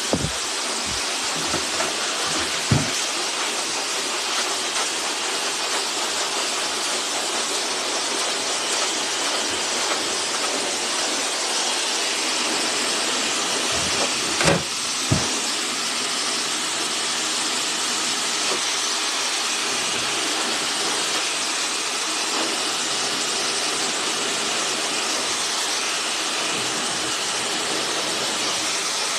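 Hair dryer blowing steadily, with a couple of brief knocks about halfway through.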